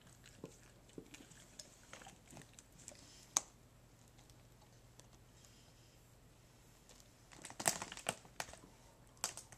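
Dogs licking and smacking their lips after eating peanut butter: faint, scattered wet clicks, one sharp one about a third of the way in and a quick cluster of them near the end.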